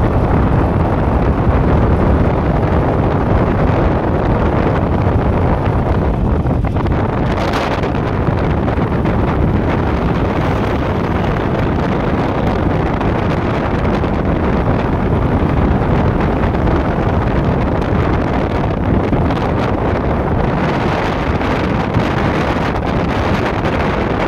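Strong wind rushing over the microphone of a moving motorcycle, a loud, steady rumbling rush with the ride's vehicle noise mixed in.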